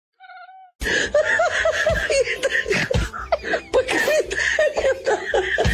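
A cat's short meow, then from about a second in several people laughing heavily and continuously.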